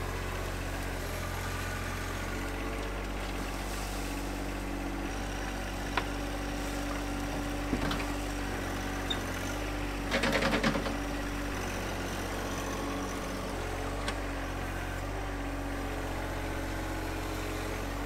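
John Deere 1025R compact tractor's three-cylinder diesel engine running steadily while the front loader works, with a few single knocks. About ten seconds in there is a short, louder clatter as the loader bucket dumps roots and dirt into a wooden trailer.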